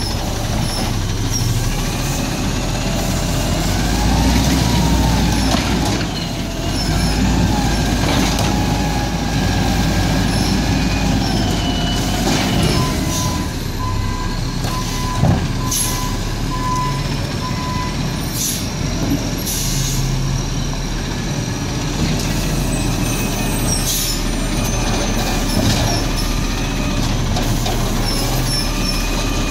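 Peterbilt 320 garbage truck with an Amrep Octo automated side-loader, its engine running steadily. A wavering whine comes through in the first half, and there are short air brake hisses and one sharp clank about halfway through as the truck pulls up and its arm reaches out for a cart.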